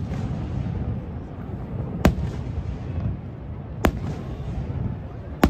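Aerial fireworks shells bursting in sharp bangs: one about two seconds in, another nearly two seconds later, and a third right at the end, over a steady low rumble.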